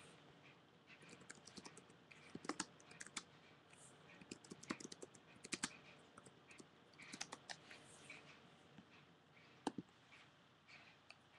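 Faint typing on a computer keyboard: quick key clicks in short, irregular bursts.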